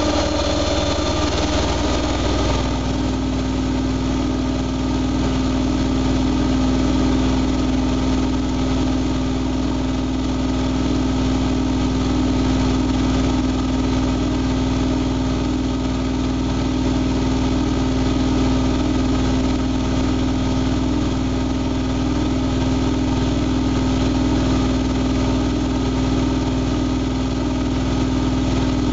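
Siemens Siwamat iQ front-loading washing machine running its drum at speed: a steady motor hum with a strong, even tone. About two seconds in the tone shifts slightly lower, then holds steady.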